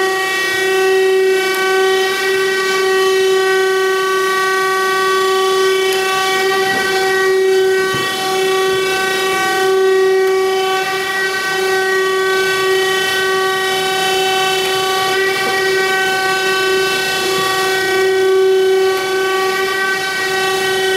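Thompson 8CX surface grinder running, its table traversing under the grinding wheel, with a steady, loud whine held at one pitch.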